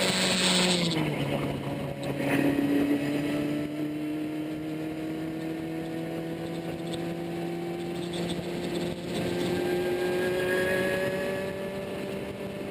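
Ariel Atom's supercharged Honda K24 2.4-litre four-cylinder engine heard from onboard on track. The revs drop about a second in, then climb slowly and steadily as the car pulls down the straight.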